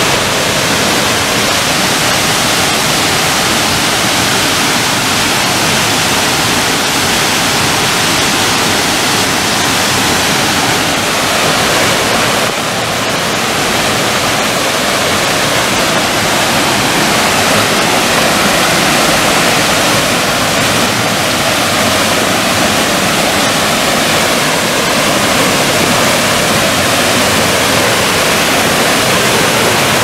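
Small waterfall and its lower cascade pouring steadily over rocks: a loud, even rush of falling water, briefly a little softer about twelve seconds in.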